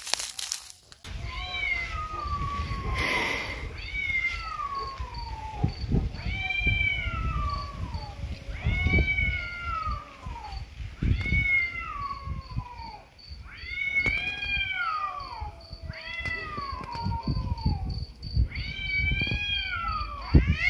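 A cat yowling (caterwauling): about eight long drawn-out howls, each rising briefly and then sliding down in pitch, coming every two to three seconds. A cricket chirps steadily in the background.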